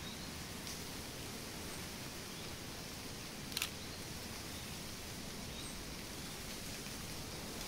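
Steady outdoor ambience bed from the edit's sound design, an even soft hiss, with a few faint high chirps and one short sharp double click about three and a half seconds in.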